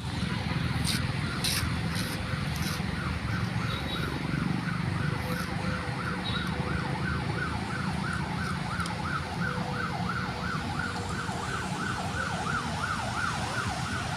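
A siren in a fast yelping pattern, its pitch rising and falling about three times a second, over a low rumble of traffic. A few sharp clicks sound in the first seconds.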